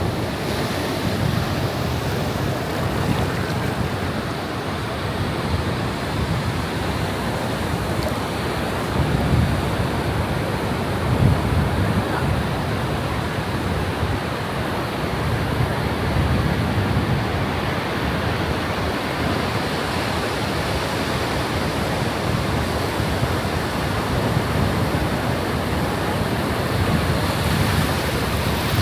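Ocean waves breaking and washing in a steady wash of surf, with wind buffeting the microphone in low rumbling gusts.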